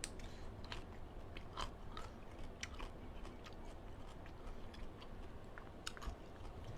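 Close-miked chewing and biting of cooked blood cockles, with scattered small wet clicks and smacks every second or so.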